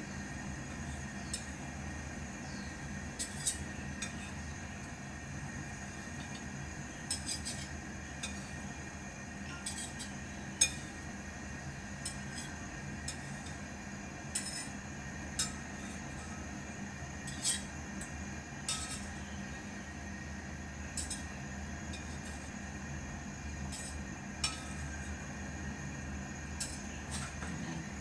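A metal spatula clinks and taps against a frying pan and plate at irregular intervals as small pancakes are lifted out and stacked, over a steady low hum.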